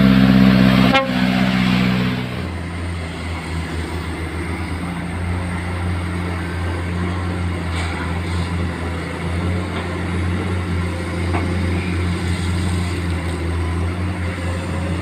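Komatsu PC210 excavator's six-cylinder diesel engine running steadily under working load. It opens with a loud pitched blast lasting about two seconds.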